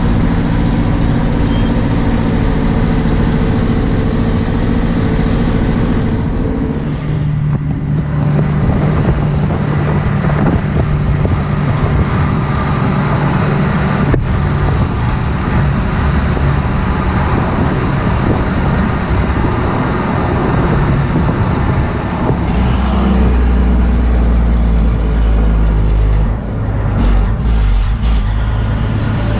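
Heavy vehicle engine running steadily in the field during wheat harvest. Its note shifts about seven seconds in and again about twenty-two seconds in, with a deeper, stronger rumble over the last several seconds.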